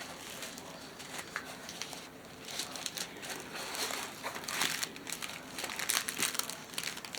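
Plastic packaging of a diamond painting kit crinkling as it is handled, a run of crackles that grows busier about two and a half seconds in.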